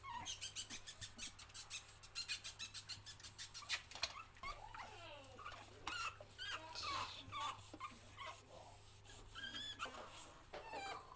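Pug puppies whining and squeaking in many short, high cries that rise and fall, from about four seconds in. Before that, a quick, even run of ticks, about eight a second, for a few seconds.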